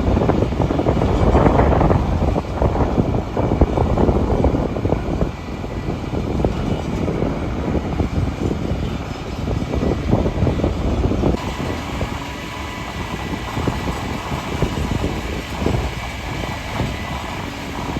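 Heavy machinery running steadily with a dense, rumbling engine noise, most likely a concrete pump truck's engine working during a concrete pour. The sound changes and drops a little about eleven seconds in.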